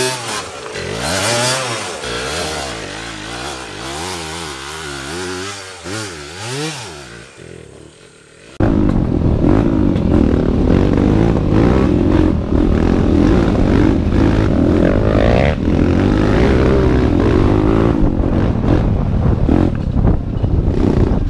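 Enduro dirt bike engine revving up and down over and over, fading for the first several seconds. About eight and a half seconds in it turns abruptly much louder and steadier, and stays so.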